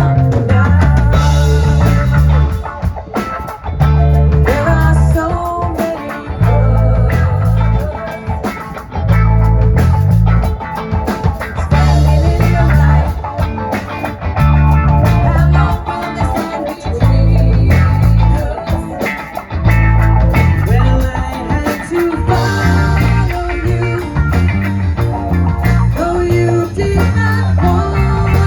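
Live band playing a pop-rock song at a sound check: electric guitar, drum kit and a heavy, pulsing bass line under sung vocals.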